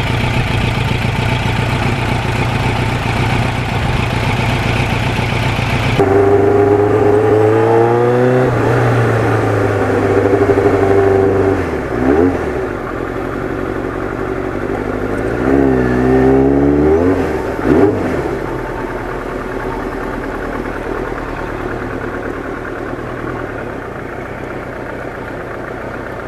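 Kawasaki GPX750R Ninja's inline-four engine under way, running steadily at first. About six seconds in it revs up with rising pitch, dropping back at gear changes, then climbs again a little later. It settles into a lower, steadier run near the end.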